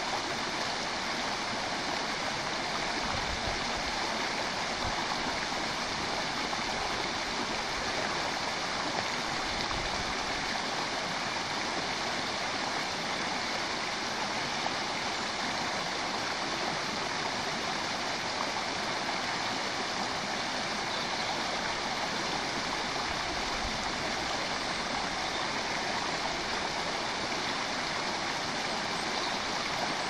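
River water running steadily, a constant even rush of flowing water.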